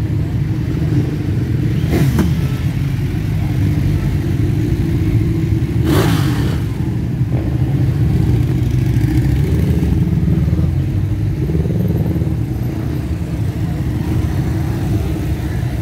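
Many motorcycles riding past in slow procession, their engines making a dense, steady low drone, with two short sharp bursts about two and six seconds in.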